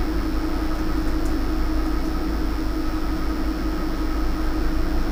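Steady background hum and hiss of the recording room, with a constant low electrical hum and no distinct events.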